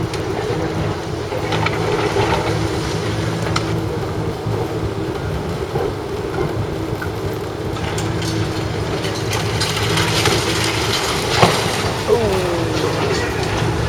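Heavy machinery running with a steady low hum and scattered knocks, a sharp bang about eleven and a half seconds in, followed by a short falling squeal.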